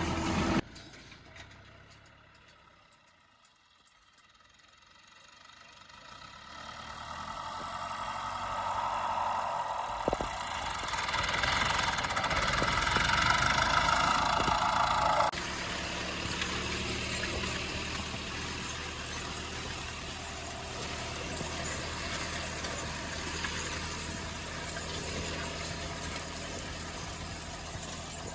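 Tractor engine pulling a grain drill during wheat sowing: after a sudden drop to near quiet it grows steadily louder over several seconds as it approaches. About halfway through the sound changes abruptly, and from there the engine runs steadily.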